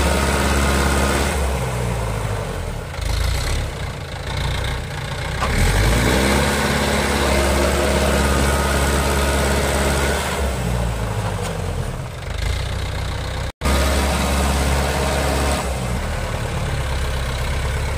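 Mahindra Yuvo tractor's diesel engine running under load, hauling a loaded trolley through mud. The engine speed dips and climbs again about a third of the way in, and the sound cuts out for an instant about three-quarters through.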